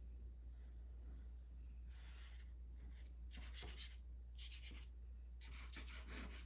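Tip of a bottle of Art Glitter Glue scratching faintly across card stock as glue is run on by hand, in about four short strokes starting about two seconds in.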